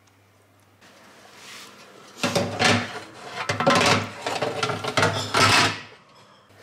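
Metal baking tray scraping and rattling on the oven's rack runners as it is slid into the oven, five or so loud scrapes over about four seconds, starting about two seconds in.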